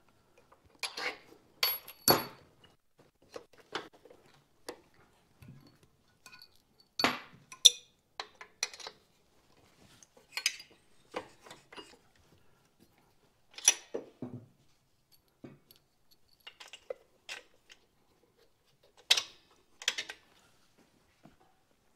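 Irregular metal clinks and clanks of hand tools and mounting bolts as an engine is bolted into a motorcycle frame. There is a sharp click every second or so, with short quiet gaps between.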